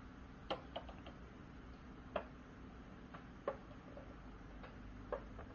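Quiet room with about eight or nine faint, irregular clicks and taps scattered through the pause.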